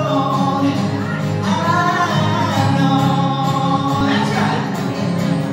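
A man singing live with acoustic guitar accompaniment, holding long notes that waver and slide between pitches.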